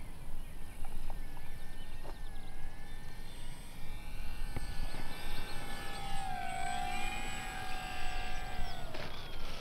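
Electric motor and propeller of an RC warbird whining at low throttle on landing approach, the pitch dipping about six seconds in, then sliding down and cutting off near the end as the plane touches down.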